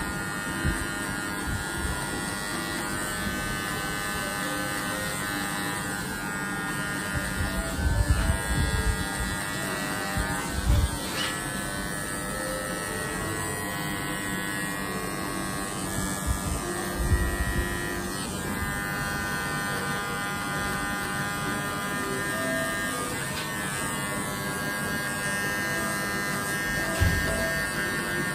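Cordless electric hair clipper buzzing steadily as it cuts short hair at the nape and back of the head during a fade. A few short low bumps sound over the buzz.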